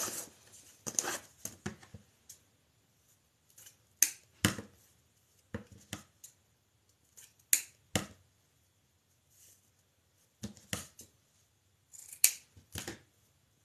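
Scissors snipping through fabric ribbon: short, crisp cuts in small bunches of one to three, a second or more apart.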